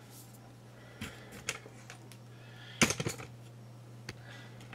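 Scattered clicks and knocks of an aluminium telescope tripod's legs and leg clamps being handled and set, with a louder short clatter about three seconds in.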